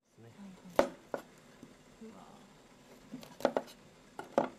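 Kitchen knife cutting broccoli florets from the head, the blade knocking sharply on a plastic cutting board several times, with a couple of quick double strikes.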